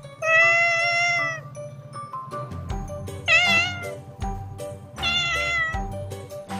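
Kitten meowing: three long, high meows, the first about a second long, the second wavering in pitch, over background music with a steady beat.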